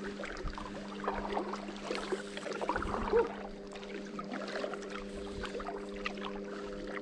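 Kayak paddle strokes: the blade dipping and splashing, with water dripping off it and a sharper splash about three seconds in. A steady low hum runs underneath.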